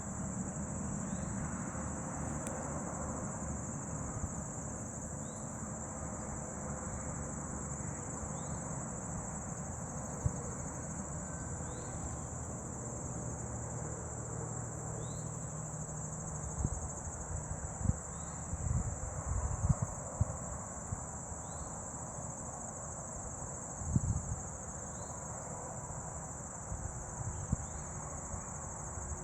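Steady high-pitched insect chorus with short chirps about once a second, over a low hum from the honey bee swarm. A few dull knocks stand out in the middle.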